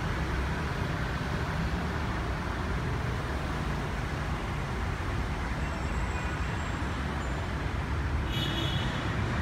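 Steady low rumble of motor vehicles. A brief high-pitched sound comes near the end.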